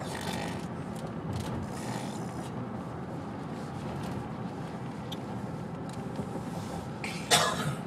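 A single short fake cough about seven seconds in, over steady background noise.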